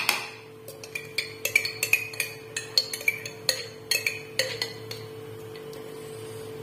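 A metal spoon tapping and clinking against the rim and inside of a plastic food-chopper bowl, knocking off a spoonful of mustard. The sharp, irregular clinks come during the first four or five seconds, then stop, over a steady low hum.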